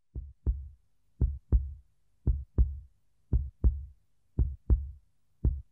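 Heartbeat sound effect: a slow double thump, lub-dub, repeating evenly about once a second, each beat a short low thud.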